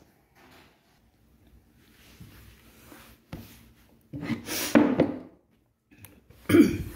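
A woman coughing loudly, twice, amid cleaning handling noises: a cloth and plastic being moved about on a table, with a single knock about three seconds in.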